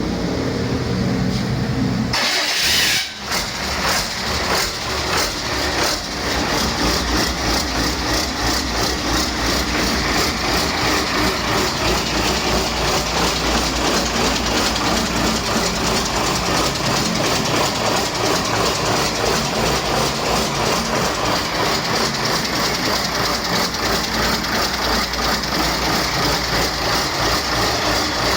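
Cummins QSB 5.9L inline-six diesel engine starting about two seconds in, running unevenly for a few seconds, then settling into a steady, evenly pulsing idle.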